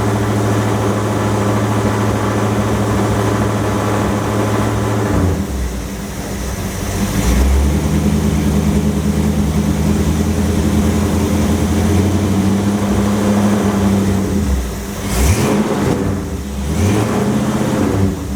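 Engine of a hot rod running through a rebuilt 727 TorqueFlite automatic. The engine note drops suddenly about five seconds in, holds steady, then dips and changes again near the end, with a sharp click among the changes.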